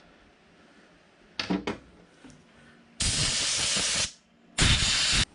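Two short clicks about a second and a half in, then a compressed-air blow gun blasting twice, a steady hiss about a second long followed by a shorter one, blowing chips off freshly die-cut threads on a steel rod.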